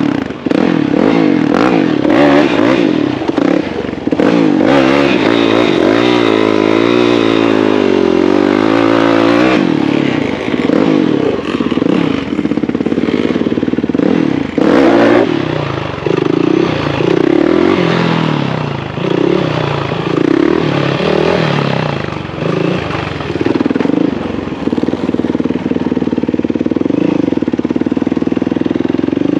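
Dirt bike engines running and revving, the pitch rising and falling again and again as they pull away and pass.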